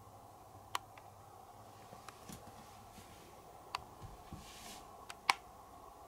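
Faint steady hum with a handful of sharp clicks and a few dull knocks from close handling, the loudest click about five seconds in, and a brief soft rustle just before it.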